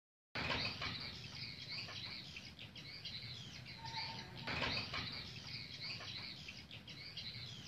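Small birds chirping and twittering in many short, high calls, coming in abruptly after a brief silence.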